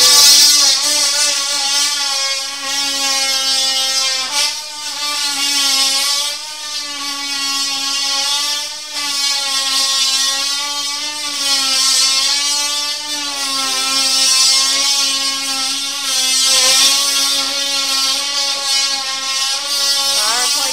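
An electric power tool running continuously with a steady whine, its pitch dipping and recovering slightly every few seconds, over a strong hiss.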